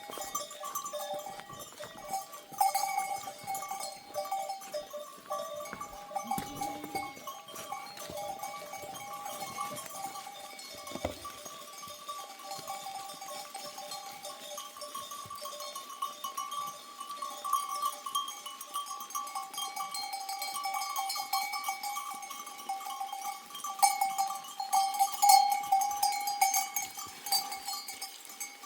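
Bells worn by a herd of goats ringing and clanking continuously as the animals move, growing louder near the end, with a short animal call about six seconds in.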